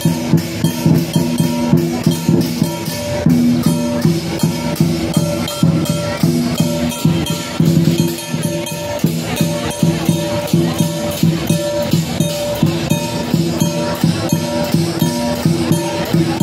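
Lion dance percussion band playing a fast, steady beat: drum strikes with clashing cymbals and ringing gong tones.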